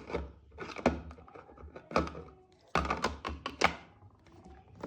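Plastic water tank of a facial steamer being slid back into the unit and pushed home: a series of hard plastic thunks and clicks, the loudest about one, two and three to three and a half seconds in.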